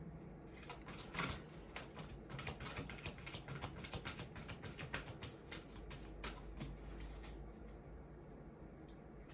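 A deck of oracle cards being shuffled by hand: a rapid, irregular run of light clicks and flicks of card against card.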